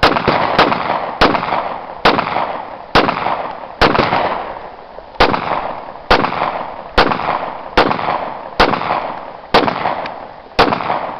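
Glock 23 pistol firing thirteen shots in steady succession, roughly one a second. Each shot is followed by a short echo.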